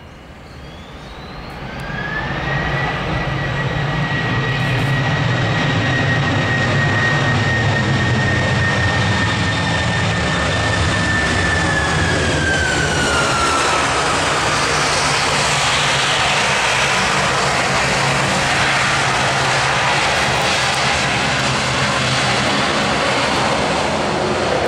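Jet engines of an Airbus A330-303 spooling up. Their noise climbs over the first two seconds or so with a rising whine that then holds steady. About twelve seconds in the whine falls away, while a loud, even rush of engine noise carries on.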